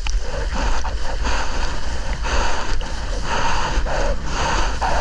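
Water rushing and splashing around a surfboard being paddled out, with a splash about once a second, and a heavy rumble of wind and water on the action-camera microphone.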